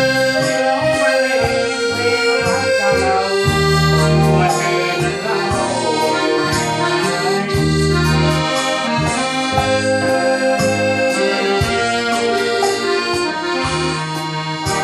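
Piano accordion playing a melody over a Yamaha Electone electronic organ accompaniment, with held low bass notes underneath.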